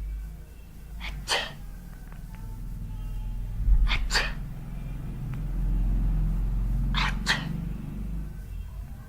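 A person sneezing from sneezing powder: short, sharp nasal bursts in three pairs, about three seconds apart, over a low rumble.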